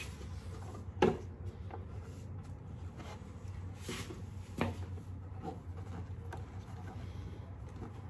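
Handling noises as a plastic Memphis Shades batwing fairing is worked onto its mount at a motorcycle's fork: a few light knocks and clicks, the sharpest about a second in, with soft rubbing between, over a low steady hum.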